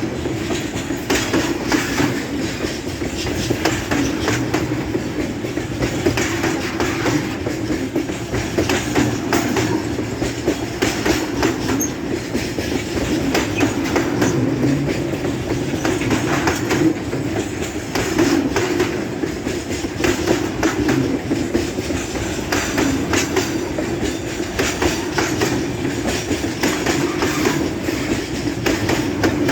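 Freight cars of a long grain train, loaded with soybeans, rolling steadily past on a heavy grade: a constant rumble with frequent clicks as the wheels cross rail joints.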